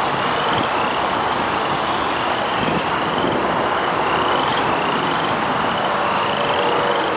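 Steady rushing noise of wind and road traffic. Over it, a short high chirp that rises in pitch repeats about every two-thirds of a second.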